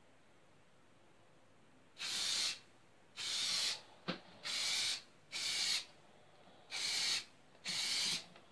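Aerosol rattle can of clear acrylic lacquer spraying in six short hissing bursts of about half a second each, starting about two seconds in: a clear coat going onto a repaired guitar neck and headstock.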